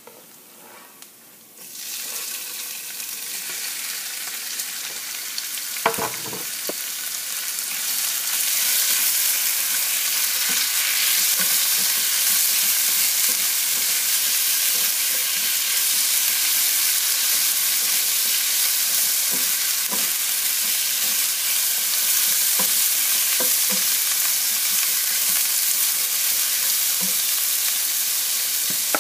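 Raw chicken pieces sizzling in a hot nonstick frying pan with fried ginger strips. The hiss starts about two seconds in and grows louder a few seconds later as more chicken goes in. There is a sharp knock about six seconds in, and light knocks later as the chicken is stirred.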